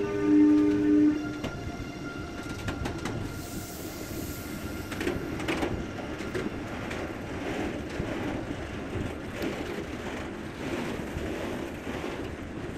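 Freight train of tank wagons rolling past, its wheels rumbling and clattering on the rails with scattered clicks. A loud steady two-note tone holds for the first second and a half or so, then stops.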